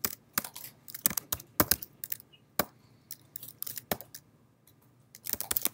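Typing on a computer keyboard: irregular key clicks, a pause of about a second near the end, then a quick run of keystrokes.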